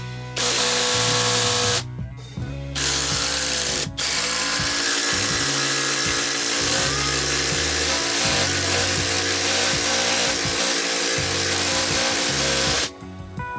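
Bosch 18 V cordless impact driver running in three bursts: two short runs of about a second each, then a long run of about nine seconds that stops shortly before the end.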